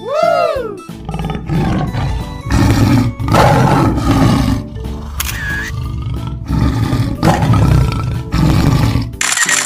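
Lion roaring and growling in several long surges over steady background music, after a short rising-and-falling animal call at the start. A brief hissing whoosh comes near the end.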